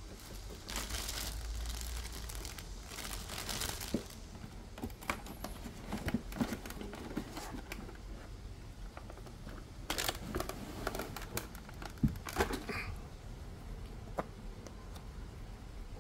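Plastic packaging crinkling in the first few seconds, then scattered light clicks and knocks of hard plastic parts being handled and lifted out of a foam case.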